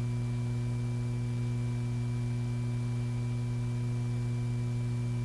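A steady low electrical hum with a few fainter, higher steady tones above it, over a light hiss.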